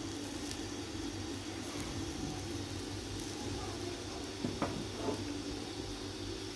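Gram-flour cheela batter frying in a non-stick pan: a low, steady sizzle, with two light knocks about four and a half and five seconds in.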